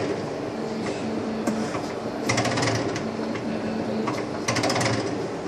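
A workshop machine, likely the rim-straightening equipment, runs with a steady motor hum. Bursts of rattling clicks come in about every two seconds.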